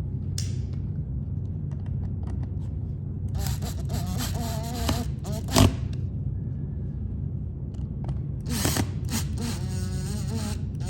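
Cordless drill driving screws back in, in two runs of a few seconds each, its motor whine shifting in pitch as it loads up. There is a sharp click near the end of the first run.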